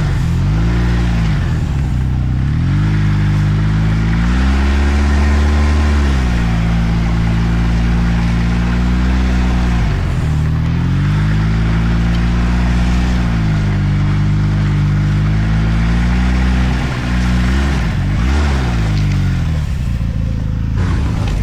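2013 Arctic Cat F1100 turbo snowmobile's turbocharged three-cylinder four-stroke engine running under way, its pitch climbing and falling again and again as the throttle is opened and eased off, with a few quick sharp drops where it is let off.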